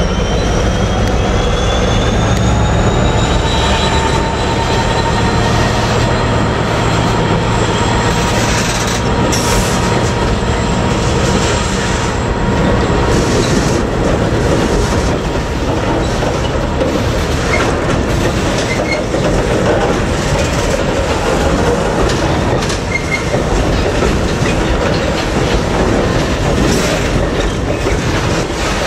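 Freight train of ballast hopper wagons rolling past, with steel wheels squealing in thin high tones that rise over the first several seconds. This gives way to a continuous rumble and clatter of wagon wheels on the rails, with occasional clanks.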